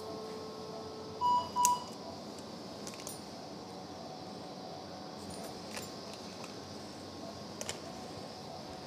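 LigaSure vessel-sealing generator: a steady activation tone that stops about a second in, then two short, louder, higher beeps, the signal that the seal cycle is complete. A few faint clicks of instruments follow over a low steady hum of operating-room equipment.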